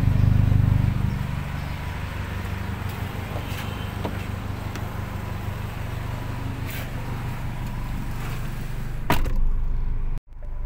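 Nissan B12's engine idling steadily through an aftermarket exhaust with a large burnt-titanium tip, loudest at first close to the tailpipe. About nine seconds in comes a single sharp thump of a car door shutting.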